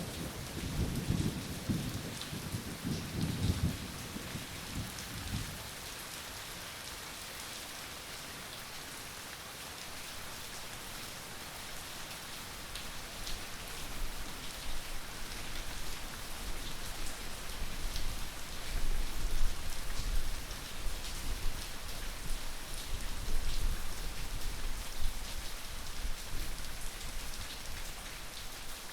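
Steady rain falling, an even hiss of drops on a surface. A low thunder rumble at the start fades out about five seconds in.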